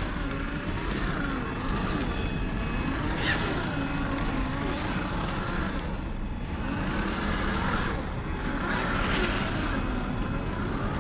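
Traxxas TRX-4 RC crawler's brushed 550 electric motor and gears whining, the pitch gliding up and down as the throttle is worked, over a steady background hiss.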